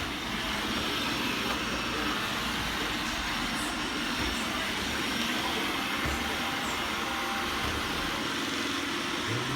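iRobot Roomba 880 robot vacuum running: a steady whir of its suction motor and brushes, holding an even level throughout.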